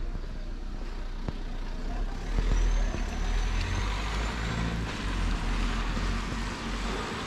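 A motor vehicle driving past on a wet street, its low engine rumble swelling about two seconds in under the hiss of tyres, with a thin high whine above it for a couple of seconds.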